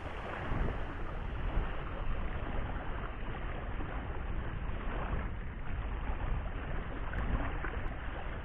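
Wind rumbling on the microphone over small waves lapping at a sandy shoreline, a steady unbroken wash.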